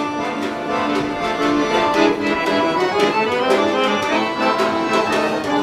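Accordion played by a street musician: a tune of chords with a melody moving over them, notes changing every fraction of a second.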